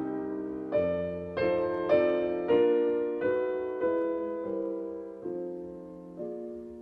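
Solo piano playing slow classical music, notes and chords struck about once a second and left to ring and fade, growing quieter and sparser near the end.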